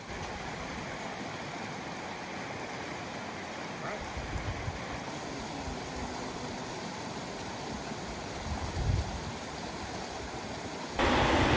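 Swollen river rushing in high water: a steady wash of water noise with low wind buffets on the microphone, jumping much louder about eleven seconds in.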